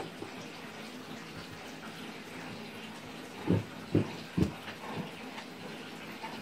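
Dog digging and pawing at its bedding on a bed: a steady rustle and scratching of duvet and blankets, with three dull thumps about half a second apart around the middle.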